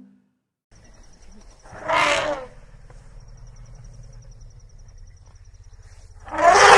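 Elephant calling: a short harsh roaring call about two seconds in, then a louder, longer one starting near the end, over a low steady rumble and a thin high buzz.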